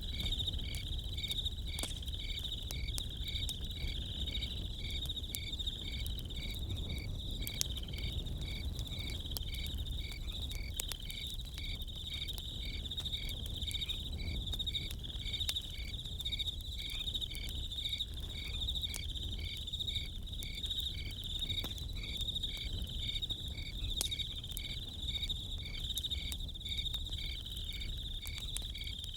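Crickets chirping steadily in a regular pulsing rhythm, over the scattered pops and crackle of a campfire.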